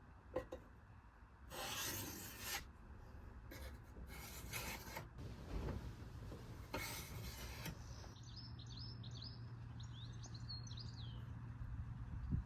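A hand file drawn across the work in four long scraping strokes. From about eight seconds in, small birds chirp repeatedly over a low steady hum.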